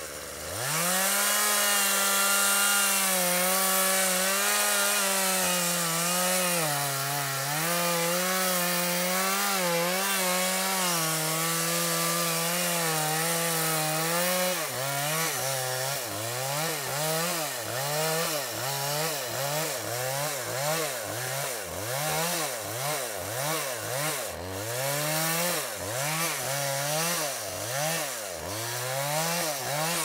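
Two-stroke chainsaw throttled up to full speed about half a second in and cutting into the trunk of a standing tree for the felling, holding a steady note under load. About halfway through, the engine speed starts rising and falling over and over, a little more than once a second.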